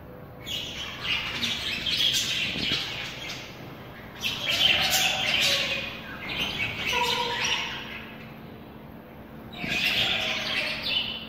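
Birds chirping in four bursts of one to three seconds each, with quieter gaps between them.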